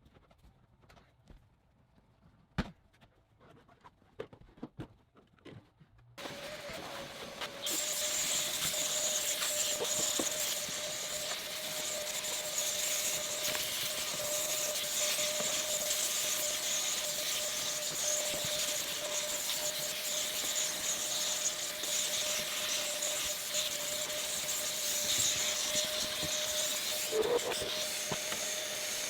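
A few light clicks and knocks, then, about six seconds in, a vacuum motor starts. It gets louder a moment later and keeps running with a steady whine and a strong rushing hiss of air.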